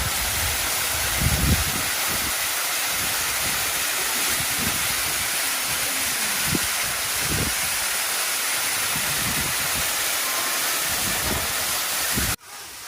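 Waterfall up close: a loud, steady rush of falling water, with irregular low buffeting from wind and spray hitting the microphone. It cuts off suddenly near the end.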